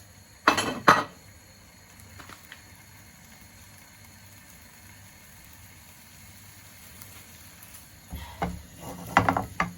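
Onion frying in a pan with a faint steady sizzle. A utensil knocks sharply against the pan twice near the start, and there is a run of stirring clatter near the end.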